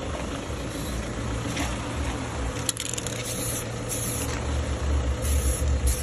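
Aerosol spray paint can sprayed in four short hissing bursts in the second half, with a steady low rumble underneath.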